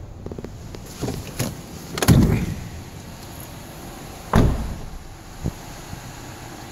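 Doors of a 2015 Honda Pilot SUV being handled: a few light knocks, then two heavy door thuds about two seconds apart, the first longer with a low tail.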